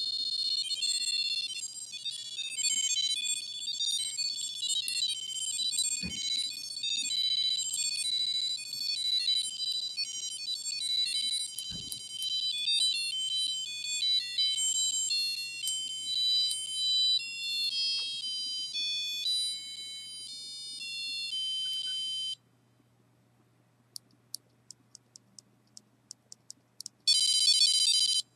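A micro:bit playing a fast techno-pop melody as a string of high, thin electronic beeps through its small speaker. The tune stops about 22 seconds in. After a few faint ticks, a loud, steady, high buzzing tone sounds near the end.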